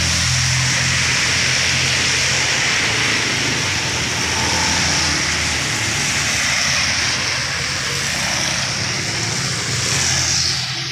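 Road traffic on a wet road: a steady hiss of tyres on wet asphalt and falling rain, over a low engine hum that fades toward the end.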